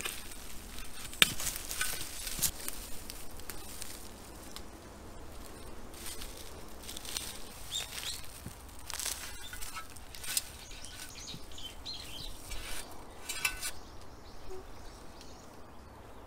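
Shovel blade digging into grassy, root-filled soil around a tree stump, with irregular scraping and crunching strokes and a sharp clack about a second in.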